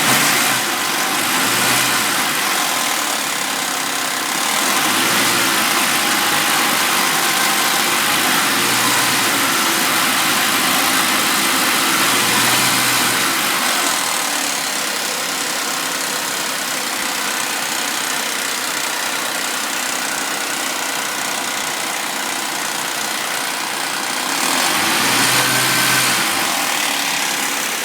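Suzuki Vitara V6 engine running warm with a constant rattling chain noise, growing louder for two stretches, the second near the end. The owner takes the noise for worn timing chains and tensioners.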